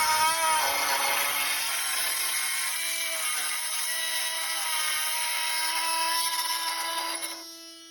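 Power tool cutting aluminum: a steady motor whine under harsh cutting noise. The cutting noise stops about seven seconds in, and the whine carries on more quietly.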